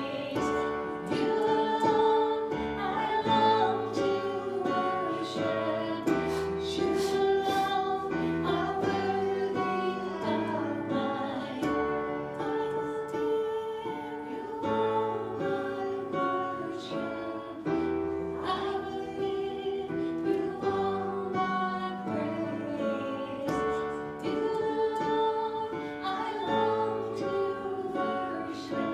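Worship song: voices singing over guitar and piano accompaniment.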